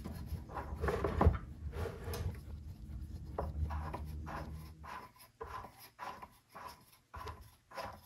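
Park Tool TS-4.2 truing stand's caliper-adjusting knob being screwed in by hand, its threaded mechanism rubbing and clicking as the caliper arms rise toward the rim. After about five seconds it thins out to a few short, faint clicks.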